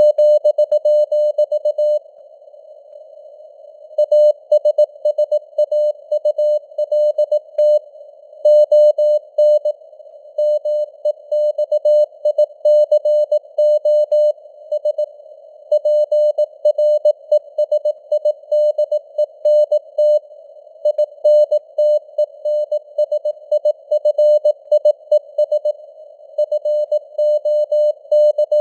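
Morse code sent at 18 words per minute: a single mid-pitched tone keyed on and off in dots and dashes, over a faint hiss of simulated radio band noise. The keying pauses for about two seconds just after the start, then runs on.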